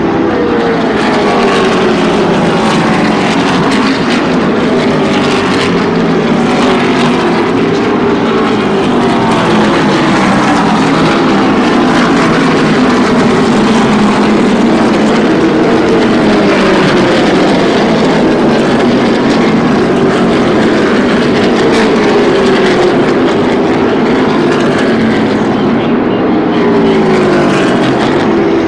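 NASCAR Xfinity Series stock cars' V8 engines racing around the oval: a constant loud engine din, with one car's note after another falling in pitch as it passes.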